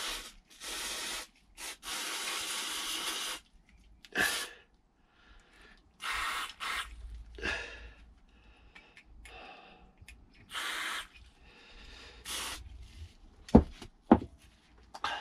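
Aerosol can of brake cleaner spraying through its straw nozzle in repeated short bursts of hiss, the longest about a second and a half, as fuel injectors are degreased. Two sharp knocks near the end.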